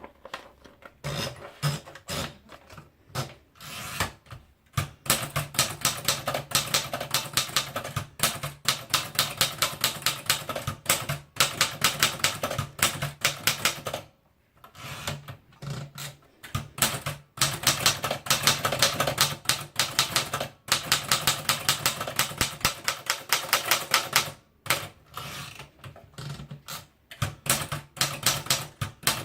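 Remington Sperry Rand 1040 typewriter being typed on: fast runs of key strikes clattering, with brief pauses about halfway through and again near the end.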